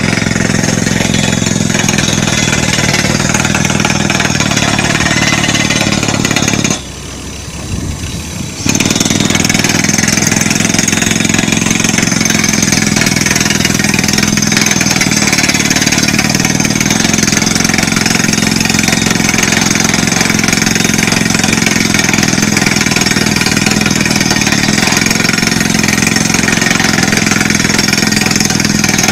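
Crawler drill rig running loudly and steadily while drilling into rock. The sound drops away briefly about seven seconds in, then comes back at full level.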